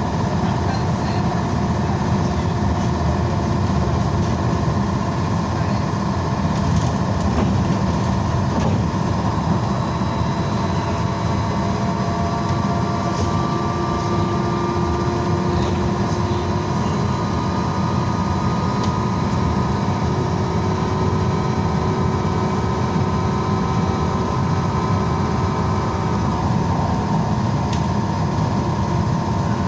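Inside a BKM-321 trolleybus under way: low road and tyre rumble with a steady whine from the electric traction drive that drifts slightly in pitch.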